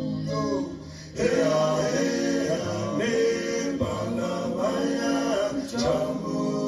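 A song played back from an Ampex ATR-102 reel-to-reel master tape, with male singing and vocal harmonies over instruments. The music drops briefly about a second in, then comes back in louder.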